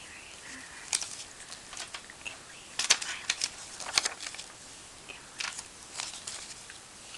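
Glossy magazine paper cutouts handled and shuffled by hand: a series of short crinkles and snaps, the loudest about three and four seconds in.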